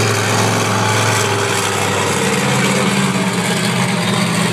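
Monster truck engine running at low throttle while the truck rolls slowly, its note stepping up a little about halfway through.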